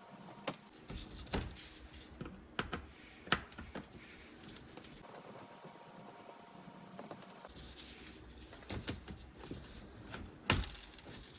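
Faint, scattered clicks and light knocks, with a sharper click near the end: a Phillips screwdriver working the screws of the plastic under-tray access panel and the panel being handled.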